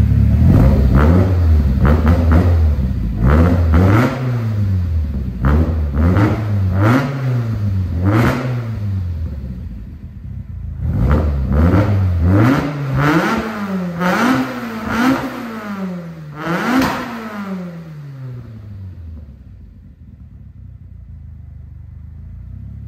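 Vauxhall C20XE 2.0-litre 16-valve four-cylinder engine on individual throttle bodies, heard at the exhaust, being blipped over and over in quick free revs that rise and fall. The revs pause briefly about ten seconds in, start again, then the engine drops back to a low, quieter idle near the end.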